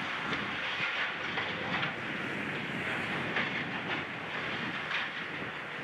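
Demolition excavator pulling at the wreckage of a collapsed building: a continuous rattle of irregular clanks and crunches from metal and concrete debris.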